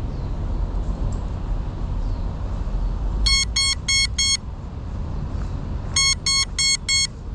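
Crashed Geprc Cinelog 35 FPV drone's lost-model beeper going off: two groups of four short, high beeps a couple of seconds apart, the alarm that helps find a downed quad. A steady low rumble underneath.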